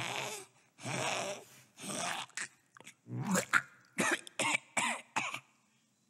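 Cartoon cat hacking up a hairball: a run of harsh coughs and retching heaves that quicken into short hacks in the second half.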